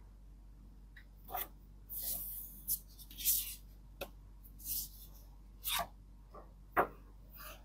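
Pages of a book being turned in a flip-through: a run of short papery swishes and soft taps, about one a second.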